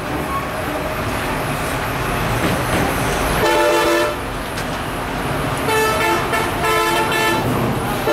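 Bus horn sounding three blasts, one about three and a half seconds in and two more close together near the end, over the low steady rumble of bus engines.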